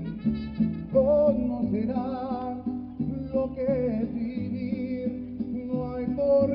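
Mariachi band playing live through a PA: a male singer with wide vibrato over strummed guitars and a low bass line.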